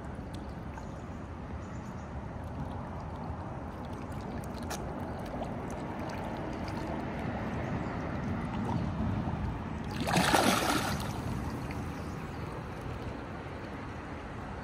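Pond water gurgling and sloshing as a dense crowd of koi churns at the surface by the bank, over a steady low rumble, with one louder splash about ten seconds in.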